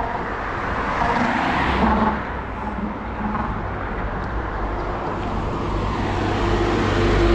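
Road traffic going by on a highway: a steady wash of tyre and engine noise that swells and eases as vehicles pass, with a truck's engine rumble growing louder as it approaches near the end.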